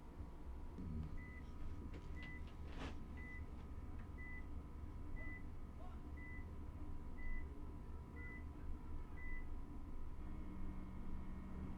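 Short electronic beeps of one steady pitch, about one a second, nine in a row, stopping about nine seconds in, over a steady low hum. There is a single sharp click about three seconds in.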